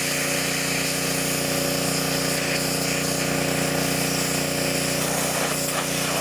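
Pressure washer spraying a high-pressure water jet onto a flip phone: a steady hiss of spray over the machine's even hum. The spray cuts off at the very end.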